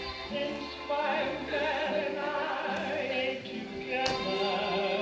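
Recorded song with a singer holding long notes with a wide vibrato over a sustained accompaniment, with a short sharp tap about four seconds in.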